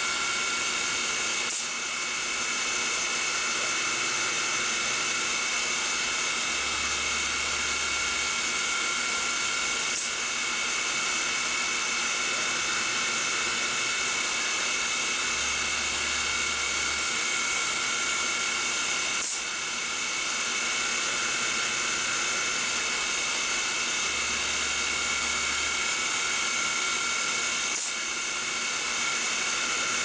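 Grizzly benchtop CNC milling machine running under automatic control: a steady high whine from its motors, with a low hum of about two seconds every eight to nine seconds as the stepper motors drive the table, and a faint click once each cycle.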